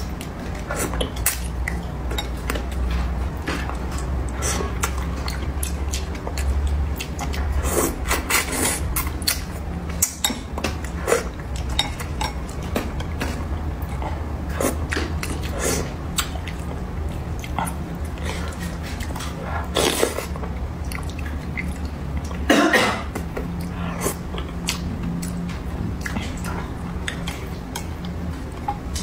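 Close-up eating sounds of spicy braised fish: wet chewing and mouth noises, with chopsticks clicking against the fish and bowl. A cough breaks in about twenty seconds in, with a second short burst a few seconds later.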